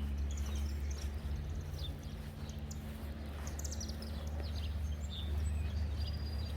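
Small birds chirping in short high calls scattered throughout, over a steady low rumble.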